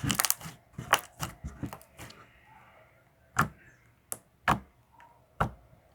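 Homemade clear slime popping and crackling as it is stretched and squeezed: a quick run of pops in the first two seconds, then single sharp pops spaced about a second apart. The slime is stiff, which its maker takes for overactivation.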